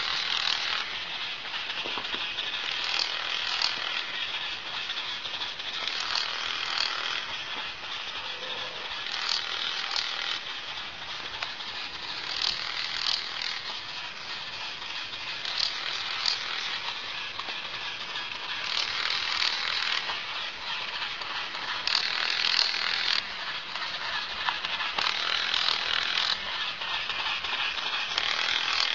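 Small gear motor and plastic gearbox of a battery-operated walking plush horse toy running, a rapid mechanical clicking and whirring that grows louder every three seconds or so as the toy goes through its walking and rearing motions.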